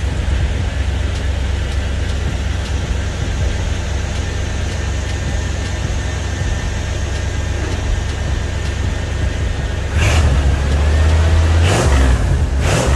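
Chevy 305 small-block V8 idling on a cold start, breathing through a single used Flowmaster muffler with a steady deep exhaust rumble. About ten seconds in it is revved up, with a few quick blips near the end.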